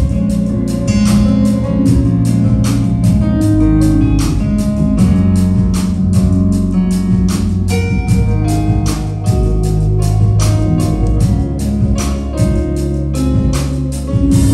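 Instrumental band music: held chords and bass notes over a drum kit keeping a steady beat of a few strikes a second, with no singing yet.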